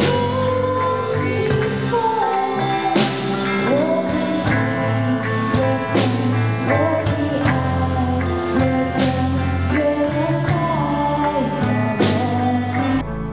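Live band playing a song: a woman singing over electric guitars and a drum kit, with a cymbal crash about every three seconds. The music cuts off just before the end.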